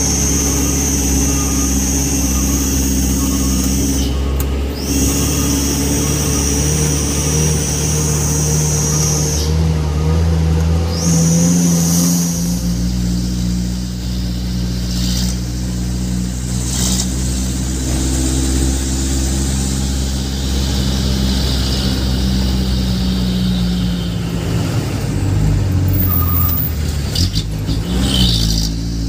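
Truck engine heard from inside the cab, running steadily on a winding mountain descent, its pitch shifting a few times with changes of speed or gear. A high steady whine runs through the first ten seconds or so, broken twice.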